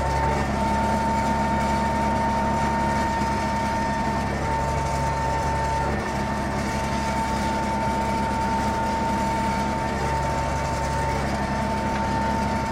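ZTS 16245 tractor's diesel engine running steadily while pulling a corn seeder across the field, heard from inside the cab, with a constant high whine held over the engine drone.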